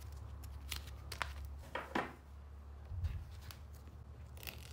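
Gloved hands handling a piece of adhesive tape and peeling its paper backing: a few short crinkles and clicks and one dull knock about three seconds in, over a low steady hum.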